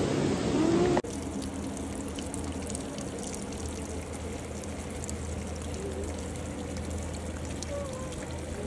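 Shallow water trickling steadily, under a faint low hum. A louder rush of noise cuts off abruptly about a second in.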